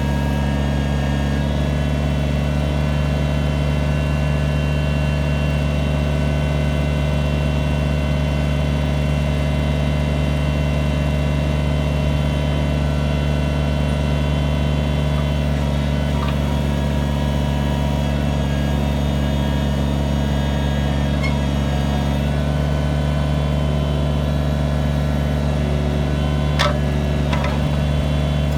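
Kubota BX25's three-cylinder diesel engine idling steadily, with a couple of brief clicks near the end.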